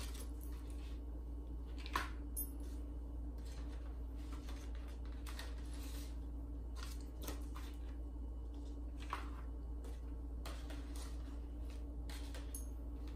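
Faint rustling and light taps of heavy paper petals being handled and pressed into place on a paper flower, a few separate touches scattered through, over a steady low hum.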